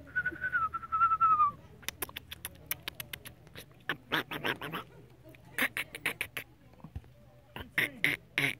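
A person whistles one wavering note for about a second and a half, then a run of short, sharp clicks and smacks follows, some coming in quick clusters of several.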